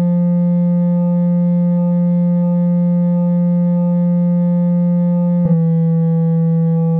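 Software synthesizer playing a sustained, clarinet-like note built from a single-cycle clarinet wavetable, held steady with a brief break about five and a half seconds in where the note is struck again. The tone barely changes as the wavetable position is swept, the crossfade morph giving a natural, acoustic-style behaviour.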